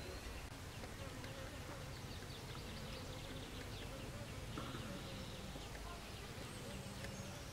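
A flying insect buzzing, a steady wavering drone, with faint short high chirps over a low outdoor background hiss.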